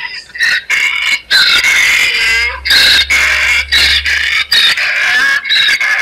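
Donkey braying: a rapid series of high-pitched hee-haw calls with short breaks between them.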